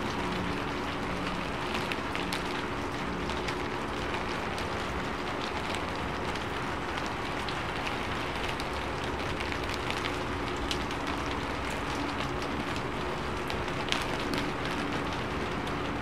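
Steady rain falling, with a dense hiss and many small drops ticking on a surface; one sharper drop stands out near the end.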